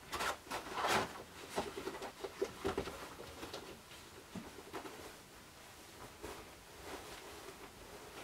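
Rustling and soft knocks of a plush mascot costume being pulled on and adjusted, in irregular bursts that are busiest in the first three seconds.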